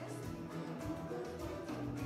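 Live band playing, with electric guitars and drums, heard from within the audience in a large hall.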